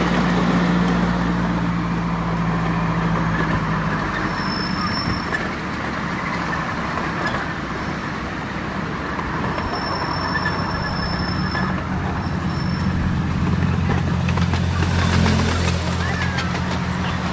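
Ride-on miniature railway train running along the track, heard from an open passenger car: a steady low drone with wheel and running noise, a faint thin squeal twice, and a brief hiss about fifteen seconds in.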